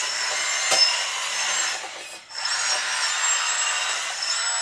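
Electric hydraulic pump of a 1:14 RC wheel loader running with a high whine and grinding whir as the boom lifts the bucket, with a sharp click just under a second in. It stops briefly about two seconds in, then starts up again with a rising whine.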